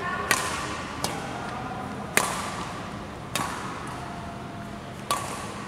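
Badminton racket strings striking a shuttlecock: five sharp pings about a second apart, ringing briefly in a large echoing hall.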